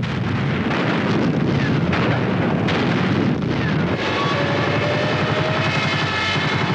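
Artillery fire: a dense rumble of gunfire and explosions with several sharp blasts in the first few seconds. From about four seconds in, a steady drone of aircraft engines with several held tones joins over the rumble.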